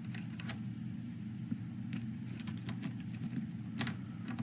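Light, irregular metallic clicks and taps of lock-picking tools against a dimple lock, over a steady low hum.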